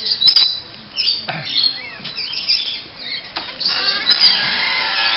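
Tropical bird squawking and giving short high chirps, with brief flurries of wing flapping. Near the end a steady rushing noise takes over.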